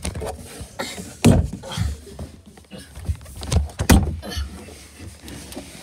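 Irregular low thumps and knocks with rustling, strongest about a second in and again near four seconds: the handling noise of a phone and people moving about in a small, dark space.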